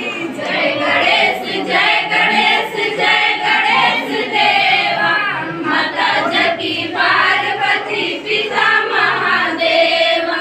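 A group of girls singing a devotional song together in unison, many voices held on long notes.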